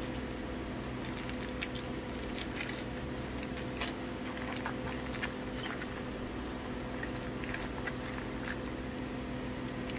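Small crinkles and soft squishing as a softened block of cream cheese is worked out of its foil wrapper by hand into a glass bowl of shredded chicken. Scattered faint clicks sit over a steady low hum.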